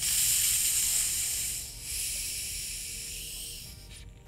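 Carbonated Faygo Fireworks soda hissing as the screw cap of its plastic bottle is loosened, the pressure escaping in a loud hiss that starts suddenly, breaks off briefly after a couple of seconds, then comes again and fades out.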